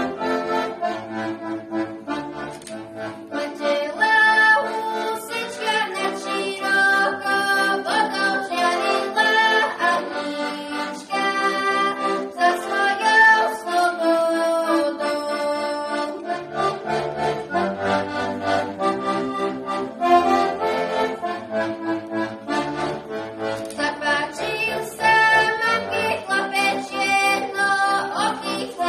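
Accordion playing a Slovak folk song tune: a melody over bass notes that pulse in rhythm.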